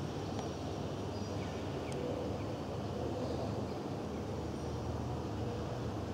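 Steady low rumble of background noise with a faint hum underneath, even in level throughout.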